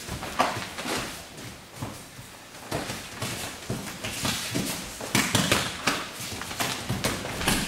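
Bare feet stepping and shuffling on judo tatami mats, with the rustle and snap of heavy judogi cloth as two judoka grip-fight. The irregular short thuds come thicker in the second half.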